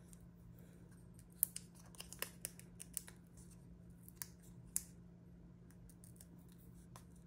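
Fingers handling a small die-cut cardstock piece with foam adhesive squares on its back, giving a scatter of light, sharp paper ticks and crinkles over a steady low hum.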